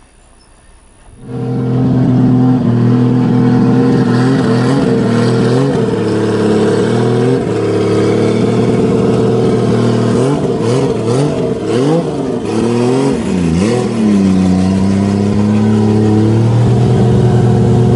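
Turbocharged 2JZ straight-six in a Lexus SC coupe running loud, its pitch dipping and climbing again and again as it is revved. It starts abruptly about a second in.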